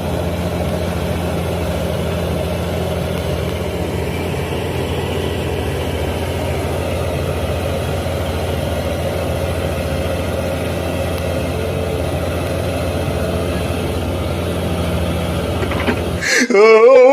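Hitachi excavator's diesel engine running at a steady, even drone, with no breaker hammering heard. Near the end it cuts off suddenly and loud laughter takes over.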